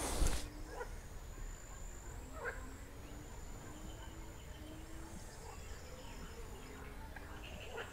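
Quiet waterside ambience: short, soft, low hooting calls repeat about once or twice a second, over a thin, steady, high-pitched insect-like buzz. A brief bump sounds at the very start.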